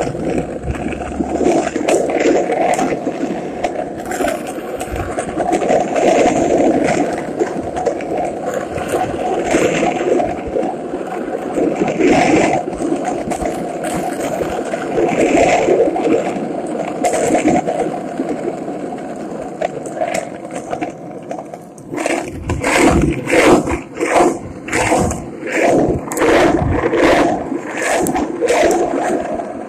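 Skateboard wheels rolling steadily over asphalt. In the last several seconds the sound breaks into regular knocks about once a second.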